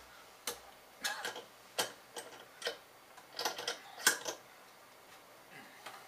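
Sharp, irregular clicks and knocks of a small Stanley bench vise and a circuit board being handled as the vise is worked loose. About a dozen in the first four and a half seconds, the loudest about four seconds in, then quiet.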